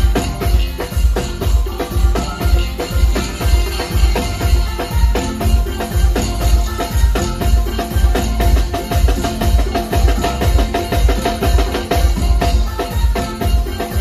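Live band playing loud music through a large PA speaker stack, with a steady heavy bass beat and busy percussion on top.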